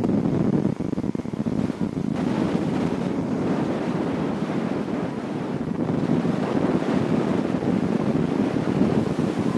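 Wind rushing over the microphone of an onride camera on a spinning chair swing ride: a loud, steady rushing noise.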